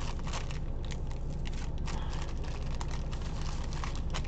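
Wax paper crinkling and crackling in the hands as it is worked loose from a freshly made sealing-wax seal: many small irregular crackles over a steady low hum.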